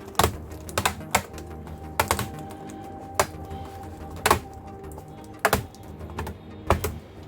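Irregular sharp plastic clicks and snaps, about ten in all, as a laptop keyboard is pressed out of its frame from below. Background music plays underneath.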